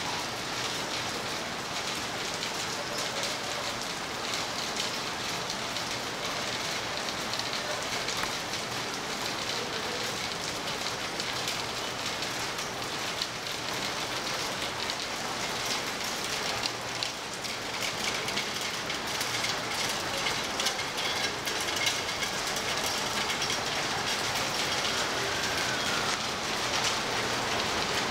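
Steady rain falling on a wet street, a dense patter of drops hitting the pavement and surfaces, growing slightly louder near the end.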